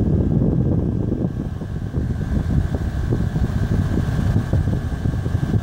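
19,000 BTU Emerson Quiet Kool window air conditioner running with its compressor on, the fan blowing a steady rush of cold air out of the front grille, with a thin steady whine over it.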